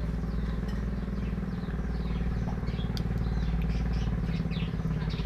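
Small birds chirping repeatedly over a steady low mechanical hum, with a single light click about three seconds in.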